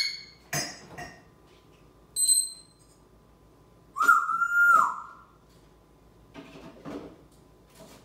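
African grey parrot whistling: a rising call at the start and, about four seconds in, one loud whistle lasting about a second, the loudest sound here. A few short clinks and knocks of dishes fall in between.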